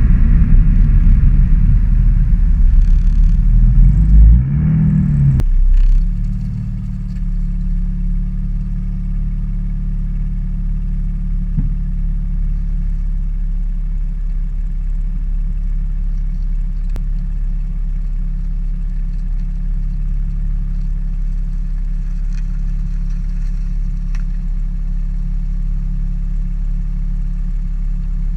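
BMW inline-six engine pulling hard under load, with a dip and rise in pitch around five seconds in as the revs change, then settling into a steady, quieter low drone for the rest.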